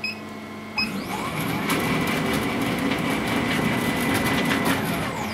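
Stepper motor driving a laser cutter's Z-axis table down on its lead screws: a motor whine that rises in pitch as it starts about a second in, runs steadily for about four seconds, then falls in pitch and stops near the end.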